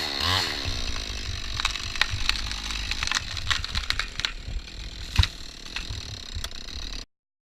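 Chainsaw revving and then winding down in the first second, followed by scattered sharp knocks and clicks with one loud knock about five seconds in. The sound cuts off suddenly near the end.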